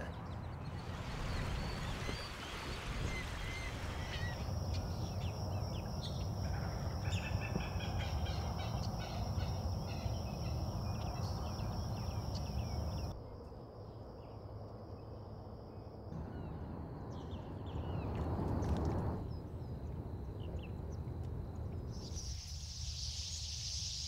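Wild birds calling with short chirps over steady outdoor background noise, the ambience changing abruptly several times. A thin steady high tone runs beneath for a long stretch, and a high hiss comes in near the end.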